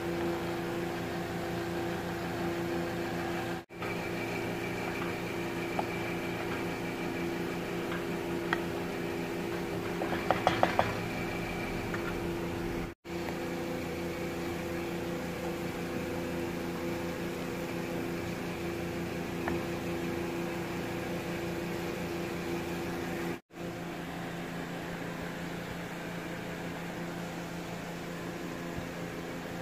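Steady electric motor hum, with a quick run of light knocks about ten seconds in from a wooden spatula against the nonstick pot. The hum cuts out for an instant three times.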